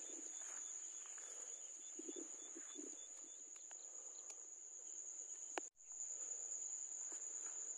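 A steady, high-pitched insect trill, with soft rustling steps through grass. A sharp click and a brief cut-out come about five and a half seconds in.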